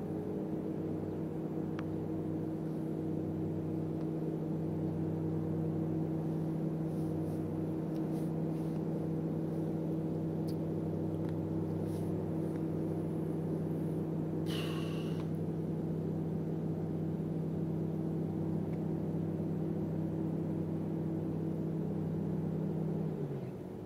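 Steady low mechanical hum of an unseen engine or machine running, cutting off abruptly about a second before the end. A brief sharp higher sound comes about halfway through.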